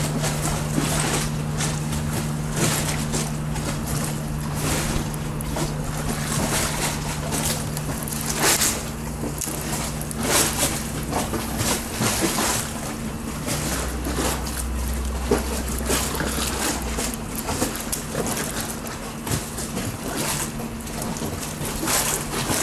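Wind buffeting the microphone in irregular gusts, over a steady low hum.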